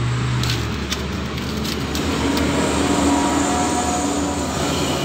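Small metal clicks and taps as the parts of an Isuzu Panther starter motor's end housing are handled and fitted together, several in the first couple of seconds, over a steady background rumble.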